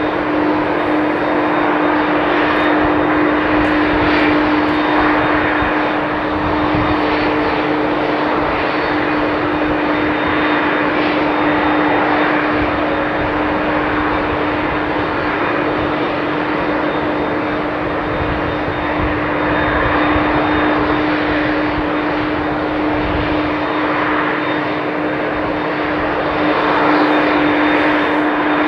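Jet airliner engines running steadily at low power, a loud even rush with a constant droning hum.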